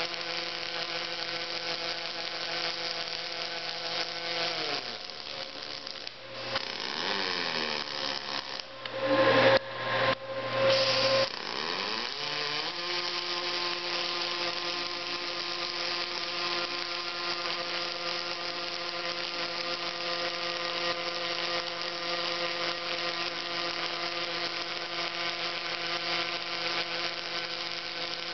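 Robotic welding machinery running with a steady electric motor whine. The whine winds down about five seconds in, gives way to louder, rougher bursts between roughly nine and eleven seconds, then winds back up and runs steady again.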